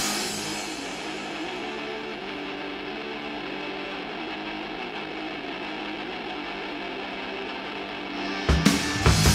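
Black metal recording: a quieter passage of sustained electric guitar with little or no drumming. About eight and a half seconds in, the full band comes back in with loud hits.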